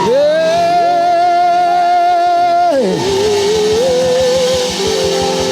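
A loud held shout of praise from one voice, pitched high and wavering slightly, sustained for nearly three seconds before its pitch drops away, then a lower held voice, over church band music with guitar. It is a congregational 'prophetic shout' called for on a count of two.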